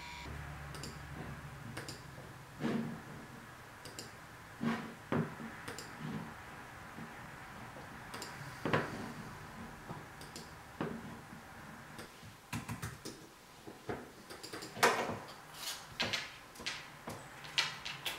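Irregular clicks and taps of someone working at a computer desk, mouse clicks and keyboard taps, coming more often and louder in the second half. A low hum fades out partway through.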